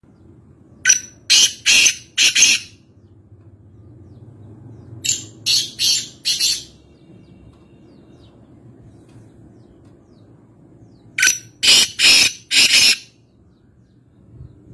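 Black francolin (kala teetar) calling three times. Each call is a quick run of four or five loud, harsh notes, with a steady low hum underneath.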